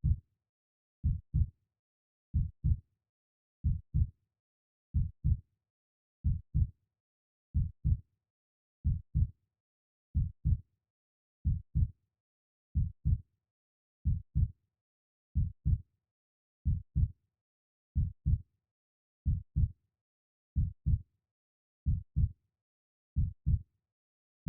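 Slow, steady heartbeat, each beat a low double thump (lub-dub), about one beat every 1.3 seconds, with silence between beats.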